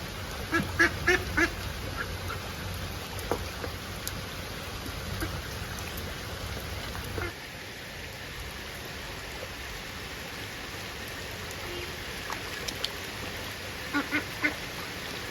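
Birds calling: a quick run of four harsh calls about half a second in, a few scattered single calls, and another run of three near the end, over steady outdoor background noise whose low rumble drops away about halfway through.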